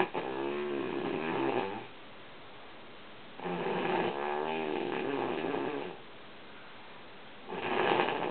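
A woman snoring in her sleep: drawn-out snores of about two seconds each with a wavering pitch, coming roughly every four seconds, the third one starting near the end.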